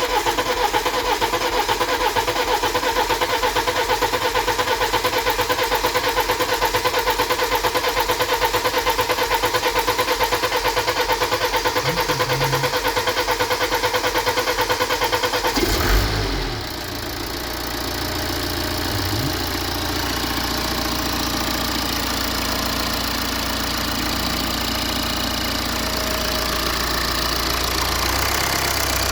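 BMW 320d four-cylinder diesel cranking on its starter with an even, fast pulsing for about sixteen seconds, then catching and settling into a steady idle. This is its first start after a new high-pressure fuel pump and injectors, with the fuel system freshly flushed and bled.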